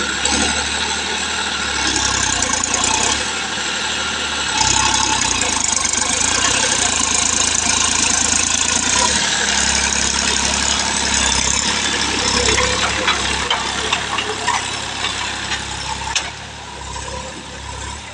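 Massey Ferguson 9500 tractor's diesel engine running steadily under load as it drags a rear implement through loose soil; the sound drops somewhat near the end.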